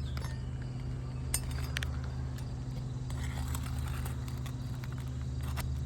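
Steady low motor hum, with a few sharp clicks and taps over it, the loudest about a second and a half in.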